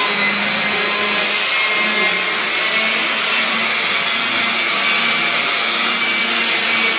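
Electric rotary polisher running steadily with a foam pad buffing car paint, a constant motor whine with no change in speed.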